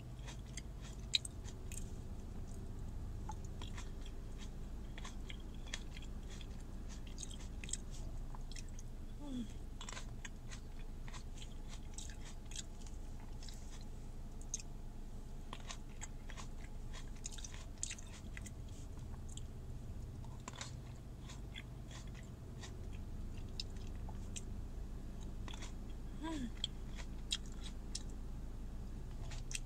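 Close-up chewing of green grapes: wet crunches and mouth clicks scattered all through, over a steady low hum.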